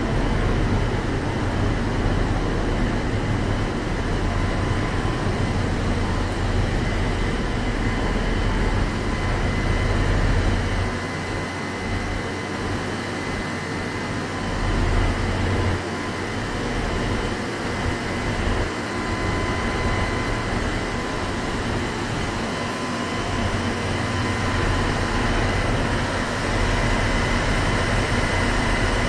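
Aoimori Railway 701-series electric train standing with its auxiliary equipment and air-conditioning running: a steady hum and rumble with a faint steady high whine.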